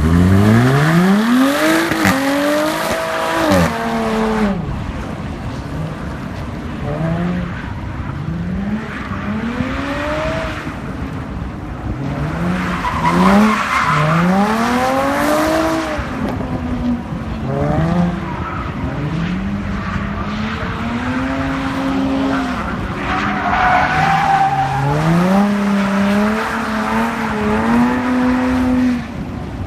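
A Jaguar's engine revved hard over and over during a drift or burnout, its pitch climbing and dropping every second or two. Tyres squeal and skid under it, loudest near the start, in the middle and again near the end.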